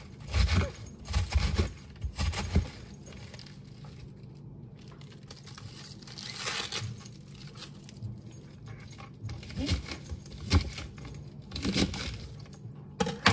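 Freshly sliced green cabbage being handled on a wooden cutting board: crisp rustling and crunching of the leaves as they are gathered and pushed together. There are a few louder knocks in the first couple of seconds.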